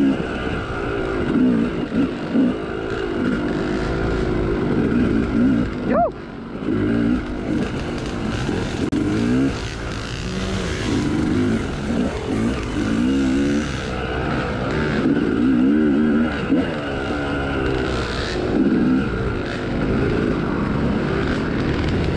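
Big-bore Yamaha YZ two-stroke dirt bike engine (YZ295/YZ300) revving up and down again and again as the throttle is worked through tight single track, with a short dip and a quick rev-up about six seconds in. Other riders' dirt bikes run close ahead.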